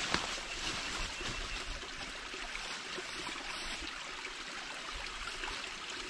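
Creek water trickling steadily at a beaver dam, an even rushing hiss, with a short knock just at the start.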